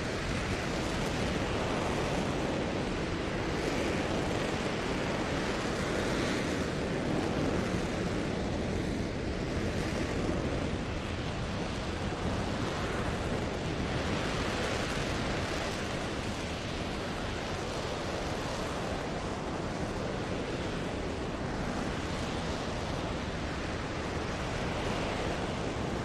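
RS-25 liquid-hydrogen rocket engine firing on a test stand: a steady, unbroken rushing noise, heard at a distance.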